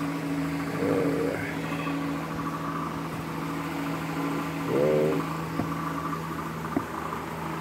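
A steady, even machine hum, with two brief vocal sounds from a man about a second in and about five seconds in.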